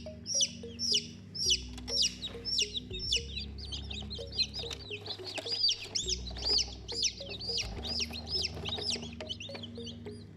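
Baby chicks peeping: many overlapping chirps, several a second, each a short high note that rises and falls.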